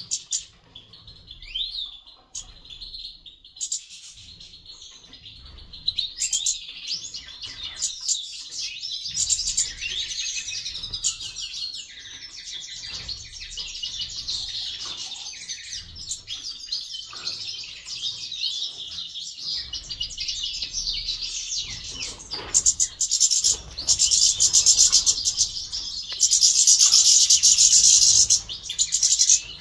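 A flock of caged goldfinches singing and twittering together, a dense, continuous chatter of high chirps and trills that grows louder over the last few seconds.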